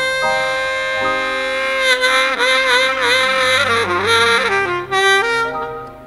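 Saxophone playing a slow melody: a long held note, then a wavering phrase with bends and note changes, fading down near the end.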